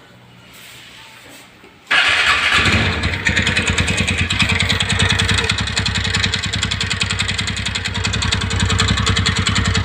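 TVS Ntorq 125 scooter's single-cylinder engine starting about two seconds in, then running with a fast, even 'tak tak' ticking, the noise the owner is showing as a problem.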